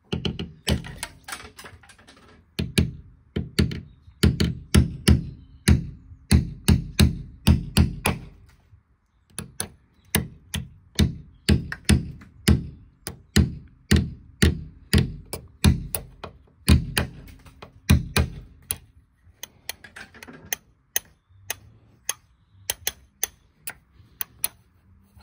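Ball-pein hammer striking a steel pin punch held against the Austin A30's steel door pillar, a long series of sharp metal blows about two a second with a short pause about nine seconds in. The punch is opening the filled-in slot for the refitted trafficator.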